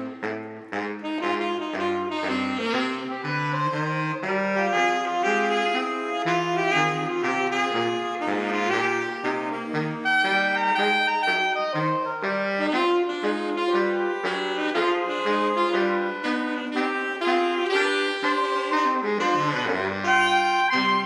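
Saxophone quartet (soprano, alto, tenor and baritone saxophones) playing a jazzy arrangement in close harmony. A baritone saxophone walks a bass line of short notes under the upper voices.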